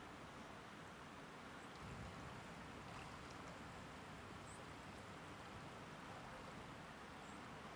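Near silence: a faint steady hiss, with a slight low swell about two seconds in.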